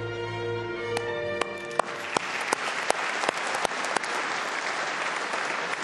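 Music with held notes fades out over the first second or so as an audience starts applauding: a few separate sharp claps, then steady, dense clapping from about two seconds in.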